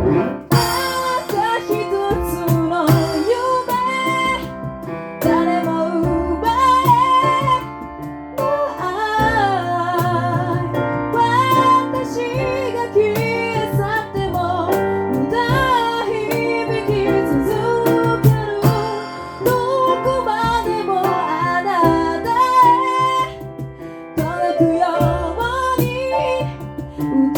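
A cappella group singing: a female lead voice over sung harmonies and a low sung bass line.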